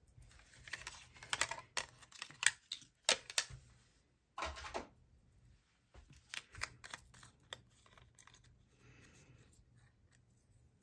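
Clusters of light clicks and taps as die-cutting plates, a thin metal die and cut cardstock are handled and set down on a craft mat, with a brief rustle of paper and low-tack tape being pulled away from the die-cut piece.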